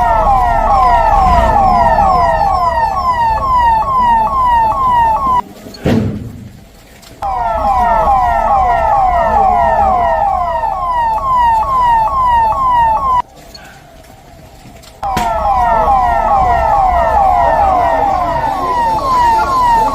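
Electronic emergency siren sounding in fast, repeated falling sweeps, about two or three a second. It cuts out twice briefly and starts again, in three bursts.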